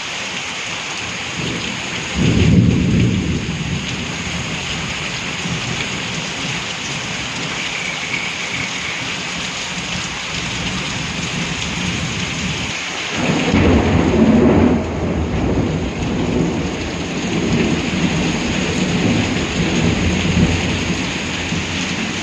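Steady heavy rain with rolling thunder: a low rumble builds about two seconds in, and a louder peal swells about halfway through and keeps rumbling to the end.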